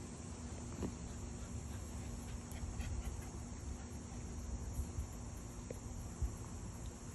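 Insects chirring steadily and faintly, over a low steady hum.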